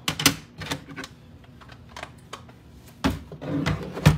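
Hard plastic graded-card slabs clicking and clacking as they are handled and set down, in a run of sharp irregular clicks with a busier cluster about three seconds in.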